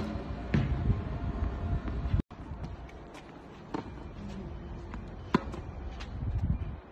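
Tennis balls being hit back and forth with rackets in a rally on a clay court: single sharp pops of strings on ball, about a second apart, with the sound cutting out briefly about two seconds in.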